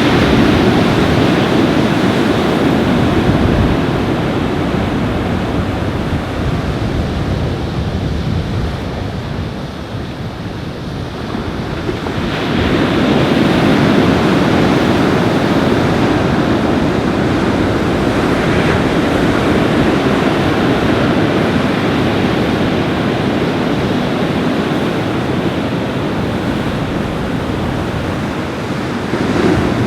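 Ocean surf breaking and washing ashore in strong wind, with wind buffeting the microphone; the roar eases for a few seconds about a third of the way through, then builds again as the next waves come in.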